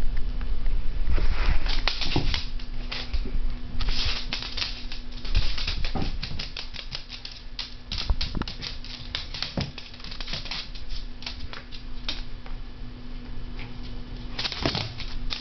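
Yorkshire terrier scuffling and scrabbling: a rapid, irregular run of clicks and scratches, busiest in the first half and again near the end, over a faint steady hum.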